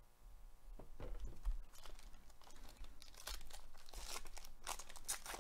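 Foil wrapper of a Panini Mosaic baseball card pack being torn open and crinkled, a run of irregular crackling tears that starts about a second in and grows busier toward the end.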